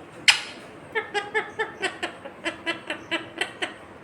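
Indian ringneck parrot giving one sharp squawk, then a quick run of short, evenly spaced calls, about four or five a second.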